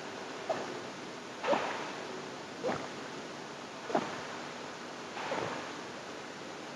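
A person drinking steadily from a plastic bottle of chilled jelly milk drink, swallowing in gulps: five swallows a little over a second apart.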